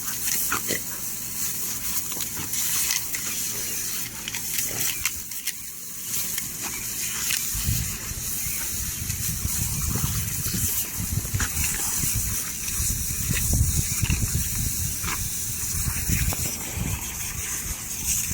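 Lawn sprinkler spraying water with a steady hiss. From about seven seconds in, loud low rumbling noise comes and goes under it, with scattered short clicks.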